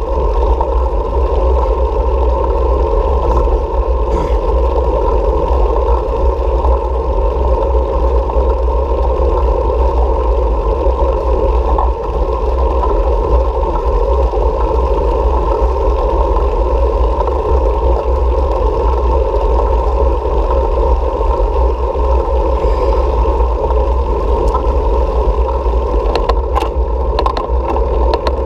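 Steady wind rush and road rumble on the microphone of a moving bicycle, with a few sharp rattles near the end.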